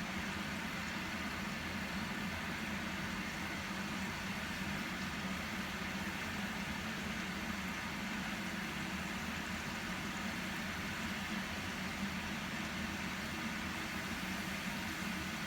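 Diamond-cut maida dough pieces (namak pare) deep-frying in a pan of hot oil, a steady, even sizzle.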